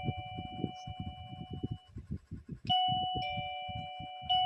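Electronic doorbell chime playing its two-note ding-dong, a higher note followed by a lower one that rings on, repeated about three seconds in and starting again near the end. The chime works on test with its battery replaced by a 12-volt power supply.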